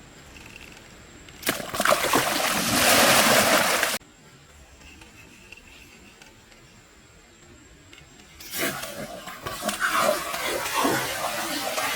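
Water splashing in two loud stretches, the first cutting off suddenly about four seconds in, the second starting near the middle and running on.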